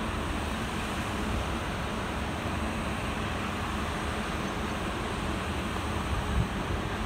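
Steady rumble of a WAP-5 electric locomotive running along the track, mixed with wind noise on the microphone.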